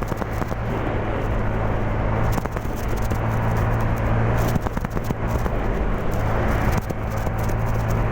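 Honda Genio scooter's engine running steadily while riding, with wind rushing over the microphone.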